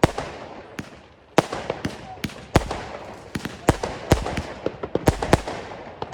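Consumer fireworks battery (cake) firing: a quick, irregular run of about fifteen sharp bangs in six seconds, each trailing off in echo.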